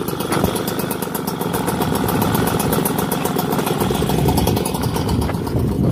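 Small engine on a motorized bicycle idling steadily, with a fast, even ticking.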